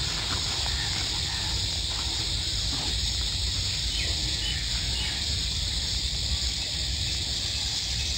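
Steady high insect chorus, cicada- or cricket-like, over a low rumble, with a few faint bird chirps.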